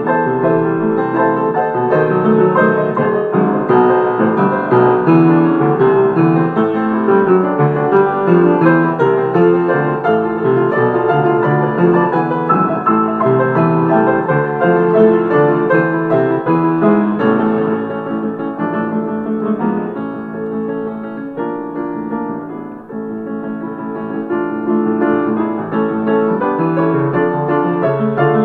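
Piano music playing continuously, a busy run of notes that grows quieter for a few seconds past the middle before picking up again.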